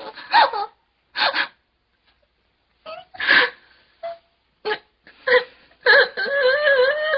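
A woman sobbing: short catching sobs and gasps with pauses between them, then a long wavering wail near the end.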